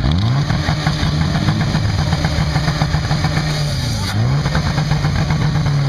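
Engine of a portable fire pump revving up sharply and running at high speed, with a brief dip in revs about four seconds in before it picks up again.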